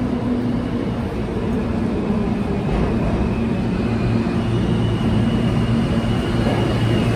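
Subway train rumbling in the tunnel, heard from the platform, slowly growing louder as it approaches, with a thin high squeal joining in about two-thirds of the way through.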